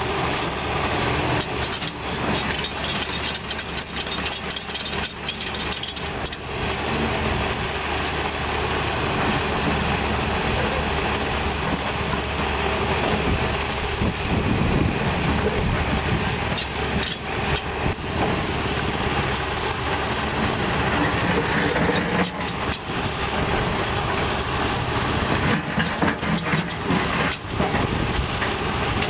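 Caterpillar 320D2 hydraulic excavator's diesel engine running steadily.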